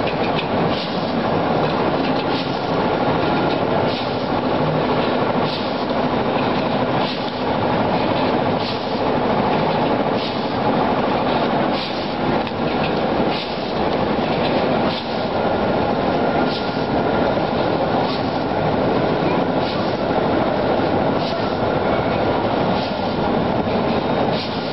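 Automatic rotary premade-pouch packing machine running: a steady mechanical clatter with a sharper clack repeating about every second and a half, over a continuous background din.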